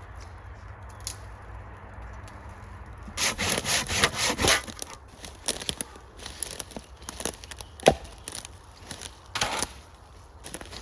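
Firewood being cut or broken. About three seconds in comes a run of quick, evenly spaced rasping strokes like sawing, then scattered rasps and a single sharp crack near eight seconds.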